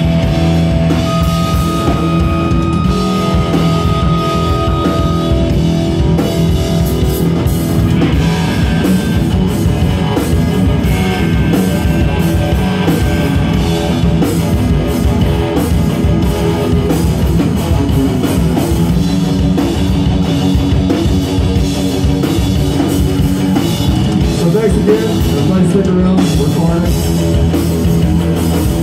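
Live punk rock band playing loudly: electric guitars, bass and drum kit going steadily, with held guitar notes over the beat.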